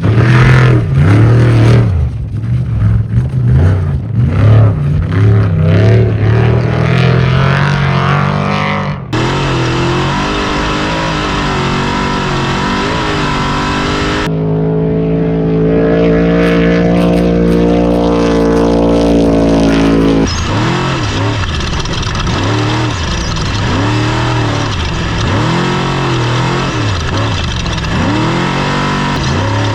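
Off-road race truck engine running hard, its revs rising and falling again and again. The sound changes abruptly a few times where separate clips are joined, and one stretch holds steady revs.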